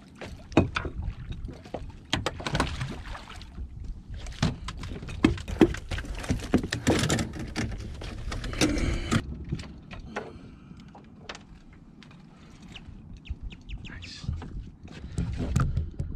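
Irregular knocks, rattles and splashes of a fish being handled and landed at a small fishing boat, with a low rumble of wind on the microphone. The knocks are busiest in the first two-thirds and ease off before picking up again near the end.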